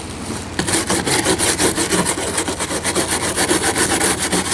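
A small hand brush scrubbing the high-density polyethylene hull of a plastic canoe in rapid back-and-forth strokes, several a second, starting about half a second in. The brush is scraping oxide and loose material off the plastic to prepare it for welding.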